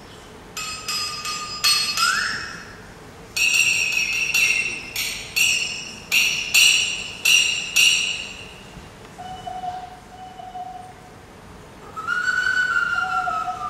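Small hand-held metal percussion struck about a dozen times, each stroke ringing out high and bright and fading away. Near the end a whistled tone with a slight bend, blown into cupped hands at the mouth.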